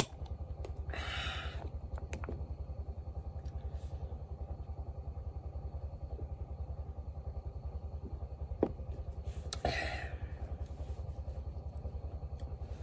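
A small engine running steadily, with an even, rapid low thudding beat. A brief rustle comes about a second in, a sharp click past the middle, and another short rustle near the end.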